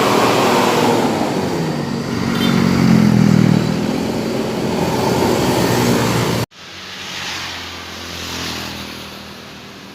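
Bus engine revving through a modified 'ngorok' exhaust that gives a deep, snoring note, its pitch swelling and falling. About six and a half seconds in the sound cuts off suddenly, and a quieter engine sound swells twice after it.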